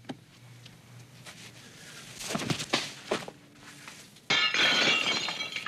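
A few short knocks, then about four seconds in a glass window pane shatters loudly with tinkling shards, as a thrown lemon goes through it.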